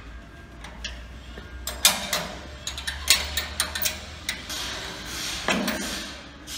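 Irregular metallic clicks and clinks of a ring spanner working the bolts of a steel sawmill beam-to-post bracket, with a heavier clunk about five and a half seconds in.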